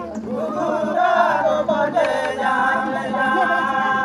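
A group of voices singing a Karam folk song together, gliding between notes at first and then holding long notes through the second half.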